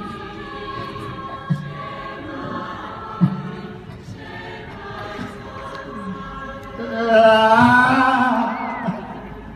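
Choir singing a slow, sustained harmony, swelling louder about seven seconds in and easing off near the end.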